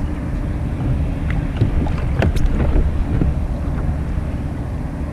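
Wind rumbling on the microphone over water moving against a fishing kayak, with a few short sharp knocks around the middle as a just-landed halibut is handled.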